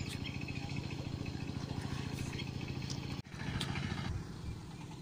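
A motor engine running steadily with an even low throb. It breaks off sharply a little over three seconds in, and a rougher, less even engine-like sound follows.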